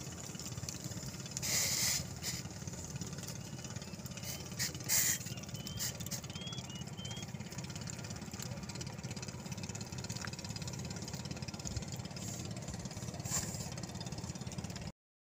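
A steady low engine-like drone, with two brief hissy bursts in the first five seconds and a few faint bird chirps.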